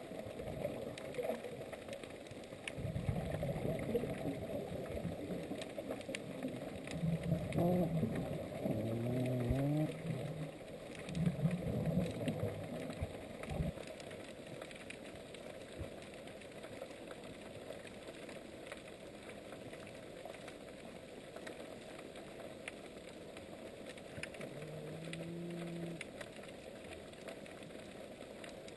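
Underwater sounds from an unidentified marine animal, which the recorders think may be a marine mammal or a fish. A run of low pitched calls fills the first half, some gliding up and down in pitch. One short call comes near the end, over a steady hiss with scattered faint clicks.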